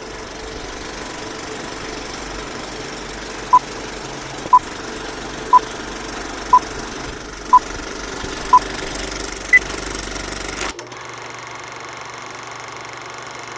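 Old film projector clattering steadily under a countdown leader: six short beeps one second apart, then one higher-pitched beep. About eleven seconds in the clatter stops, leaving a low hum and hiss.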